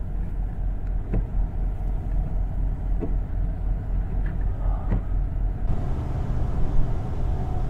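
A 1970 Buick Estate Wagon's 455 V8 running, heard from inside the cabin as a steady low rumble of engine and road noise. A faint tick comes about every two seconds during the first few seconds.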